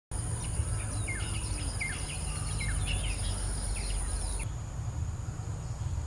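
Outdoor nature ambience: a bird repeats a short falling chirp about once a second while an insect keeps up a steady high-pitched trill, both stopping about two-thirds of the way through, over a steady low rumble.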